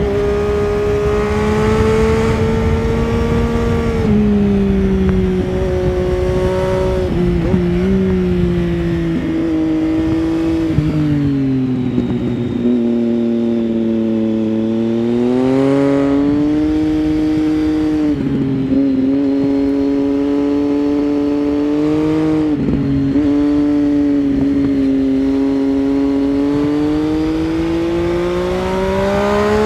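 2009 Triumph Street Triple 675's inline three-cylinder engine, through an Arrow 3-2 exhaust with its dB-killer fitted, heard from the rider's seat while riding. The engine note rises and falls with the throttle, dropping to a low note around the middle as the bike slows, then climbing again, with several brief breaks in the note along the way.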